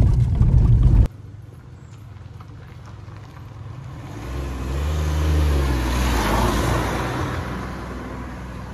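Car road noise that cuts off abruptly about a second in, then a motor vehicle passing by: its engine hum and tyre noise grow louder, peak in the middle and fade away.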